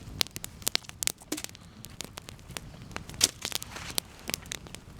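Wood campfire crackling, with irregular sharp snaps; the loudest snap comes a little past three seconds in.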